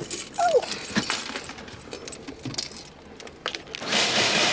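Jangling, clinking and small knocks as the phone and her things are handled, with a short squeak about half a second in. Near the end a steady rushing hiss comes in.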